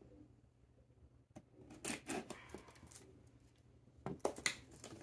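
Scissors snipping through plastic shrink-wrap on a cardboard box, then the plastic crinkling and crackling as it is pulled open, loudest near the end.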